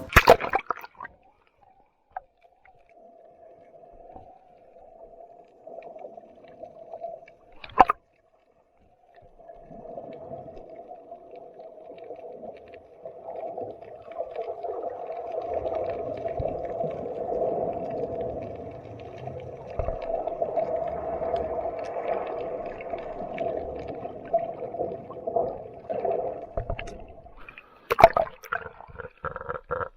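Muffled underwater sound picked up by an action camera in its waterproof housing: a hollow, wavering hum of moving seawater with low rumble, growing louder partway through. A sharp knock comes about eight seconds in and another near the end.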